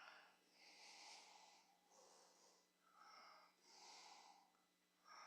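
Near silence, with a series of faint, breathy hisses close to the microphone, about one a second.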